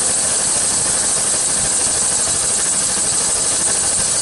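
1999 Chevy Suburban engine idling with the A/C on high: a steady rushing noise with a strong high hiss. As refrigerant is added through the low-side port, the A/C compressor is staying on rather than cycling on and off as it did while the system was low.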